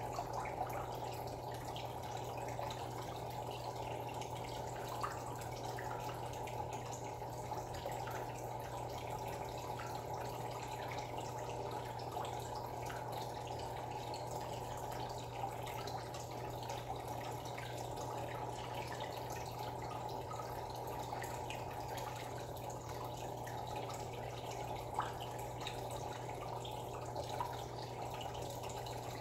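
Aquarium filter running in a turtle and goldfish tank: a steady trickle and bubbling of water over a constant low hum, with a few faint light drips or ticks.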